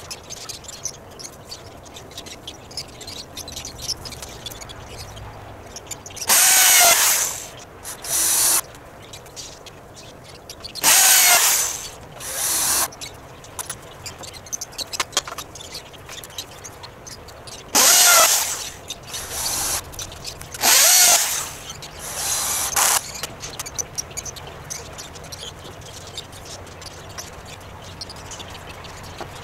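Cordless drill running in the timber frame in four pairs of bursts: a run of about a second, then a shorter burst, its motor pitch shifting as it works under load.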